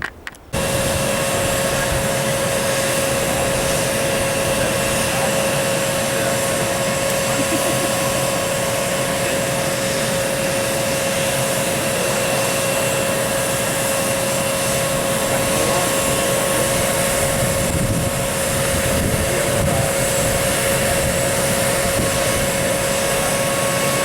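Dassault Falcon 900B's three turbofan jet engines running steadily close by: a loud rushing noise with a steady whine, starting abruptly about half a second in.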